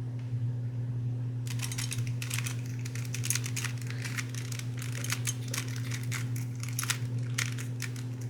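Stickered Rubik's brand cube being turned by hand: a quick, uneven run of plastic clicks and clacks as the layers turn, starting about a second and a half in. The cube is stiff and hard to turn. A steady low hum runs underneath.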